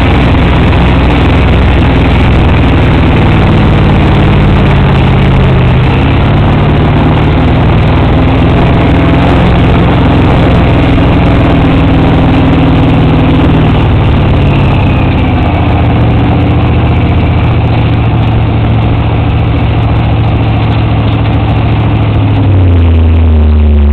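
Sandrail engine running hard as the buggy drives over sand dunes, its pitch shifting up and down with the throttle and dropping lower and louder near the end, over a steady rush of wind noise.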